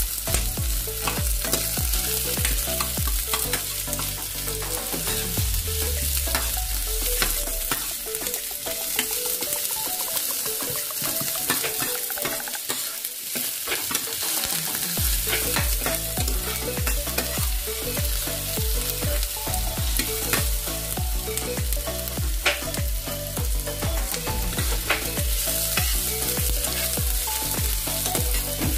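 Garlic, onion and ginger sizzling as they sauté in oil in a nonstick frying pan, while a metal spoon stirs and scrapes them around the pan with many small clicks.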